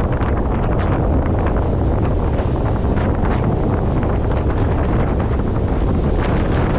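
Strong wind buffeting the microphone in a steady loud rumble, with the hiss and splash of a sailboat's bow wave and spray rushing along the hull as it drives through rough seas in about 30 knots of wind.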